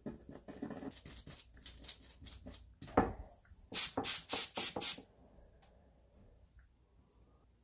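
A plastic scraper rubbing and scraping on the workpiece for the first three seconds, then about five short, loud hissing bursts from an aerosol spray can a little before the middle, the loudest sound here.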